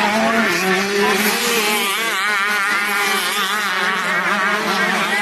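Several 125cc two-stroke motocross bike engines racing together, their overlapping buzzing notes revving up and down.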